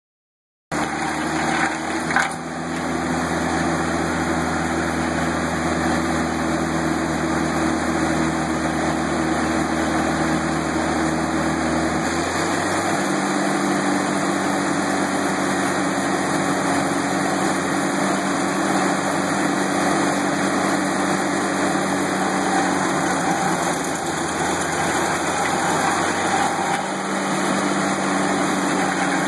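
Towable stump grinder's engine running steadily under load as its cutting wheel grinds into a stump, with a couple of brief knocks about two seconds in. The engine note shifts about twelve seconds in.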